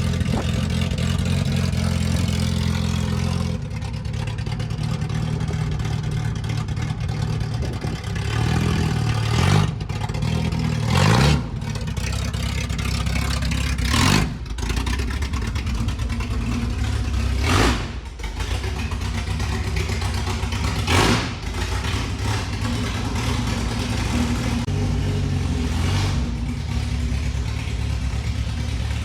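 1986 Ford XF Falcon's straight-six engine running at low speed while the car is manoeuvred, with four short surges of revs about three to four seconds apart in the middle.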